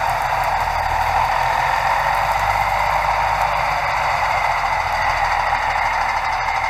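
Dump truck engine idling steadily, a low rumble under an even running noise.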